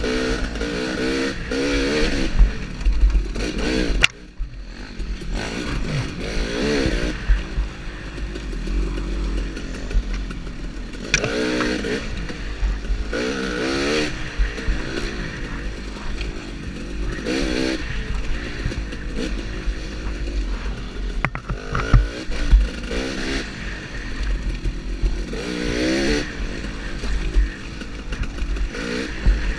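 Dirt bike engine heard from the rider's helmet camera, revving up and down as the throttle is opened and closed over the trail, its pitch rising and falling every second or two. About four seconds in, the engine is briefly backed off.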